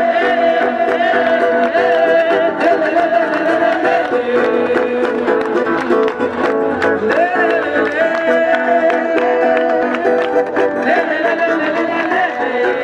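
Instrumental music with plucked strings and light percussion under a long, held melody line that dips and returns every few seconds.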